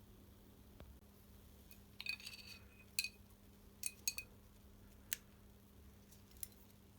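Light clicks and clinks of small hard parts and tools being handled, with a quick cluster about two seconds in and then single sharp clicks spread through the rest.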